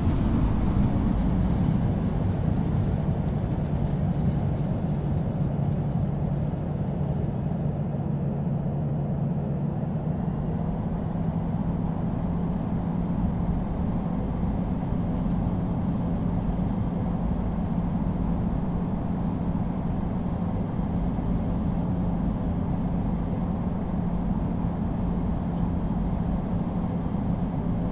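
Cabin noise inside a Boeing 787-9 airliner: the steady rush of the Rolls-Royce Trent 1000 engines and airflow, with the low engine tone stepping slightly higher about ten seconds in.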